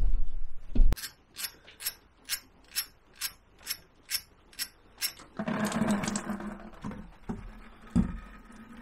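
Ratchet wrench clicking steadily, about ten clicks at a little over two a second, as it works a drain plug loose on a Honda Elite scooter engine. After the clicks comes a second or so of denser rushing noise with a low hum, and a single knock near the end.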